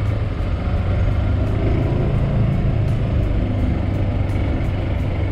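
A golf cart driving along: steady low rumble of wind buffeting the microphone, mixed with the cart's tyre and running noise.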